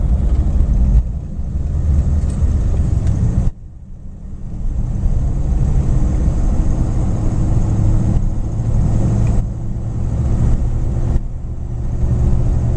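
1953 Cadillac Series 62's 331 V8, driving through a dual-range Hydra-Matic, pulling the car up a steep grade, heard from inside the cabin. The engine sound drops off suddenly about three and a half seconds in, then builds back up and pulls steadily again.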